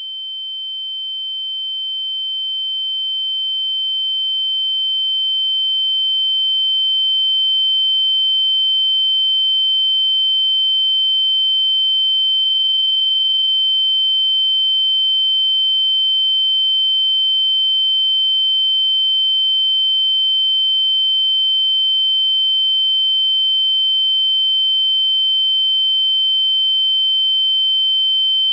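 Ear-ringing (tinnitus) sound effect: a single steady high-pitched tone, like a pure sine wave, that swells up over the first several seconds and then holds at one loud, unchanging level.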